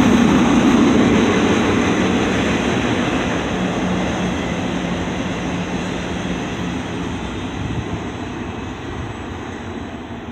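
Autorack freight cars rolling past on the rails, a steady noise of wheels on track that fades gradually as the end of the train moves away.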